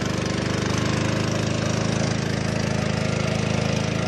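A small passenger boat's engine running steadily at an even speed, with a fast, regular pulse.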